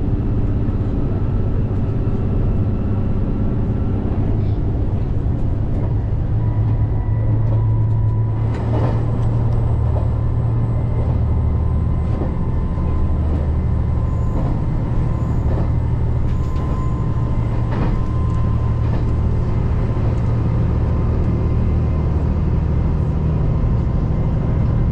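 Diesel railcar of a JR Shikoku 2700 series train running: a steady low drone heard from inside the passenger car, with a couple of faint knocks.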